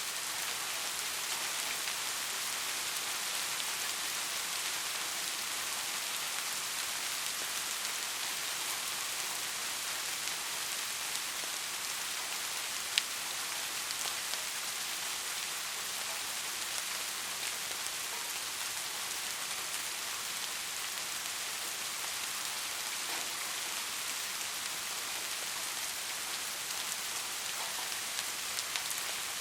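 Heavy rain falling steadily, a dense even hiss. A single sharp tap stands out about halfway through.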